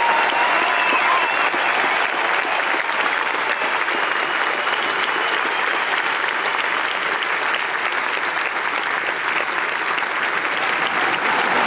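Large arena audience applauding, a dense steady clapping.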